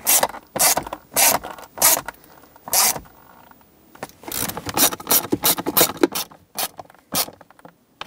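Hand ratchet with a T20 Torx bit clicking in short bursts as it drives screws into a plastic console lid, with a pause about three seconds in and a quicker run of clicks after it.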